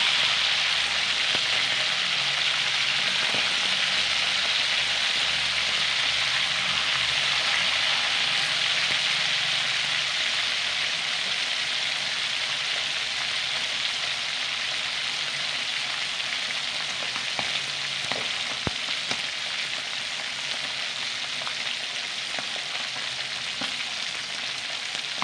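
Pork belly slices frying in hot oil in a wok, a steady sizzle that gradually gets a little quieter.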